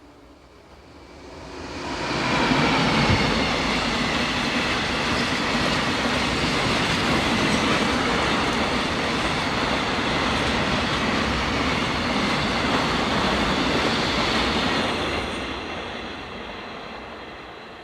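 A Korean train passing close by on the track. It builds up fast over about two seconds, runs loud and steady with wheel and rail noise for about twelve seconds, then fades as it moves off near the end.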